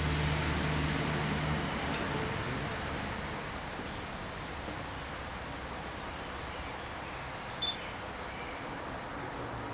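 Outdoor background noise: a low, steady engine-like hum that stops and fades out within the first two or three seconds, then a faint even hiss with a faint regular high ticking and one brief high chirp near the end.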